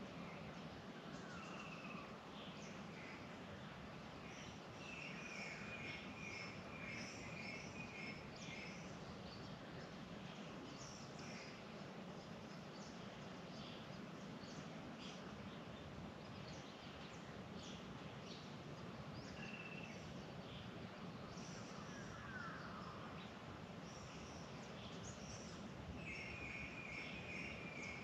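Birds calling in the bush over a steady faint background hiss and low hum: scattered short high chirps, with runs of quickly repeated notes a few seconds in and again near the end.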